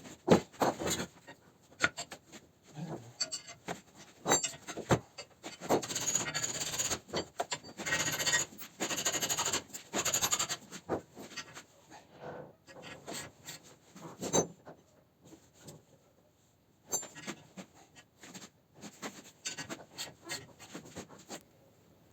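Hand tools working a pulley puller's bolt against an engine pulley: irregular metal clicks and knocks with rasping scrapes, thickest for several seconds around the middle and thinning out near the end.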